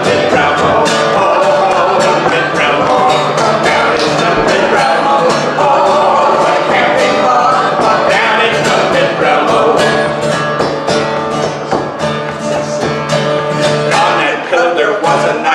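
A man strumming an acoustic guitar while he and a woman sing a song together.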